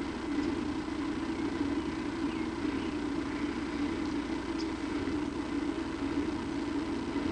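A steady low droning hum with faint hiss, unchanging throughout, with no distinct event standing out.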